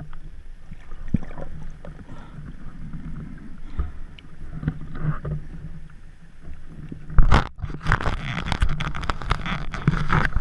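Muffled underwater noise picked up by an action camera in its waterproof housing as a diver swims with fins, a low rumble with scattered clicks and knocks. About seven seconds in it turns sharply louder into crackling, splashing water noise.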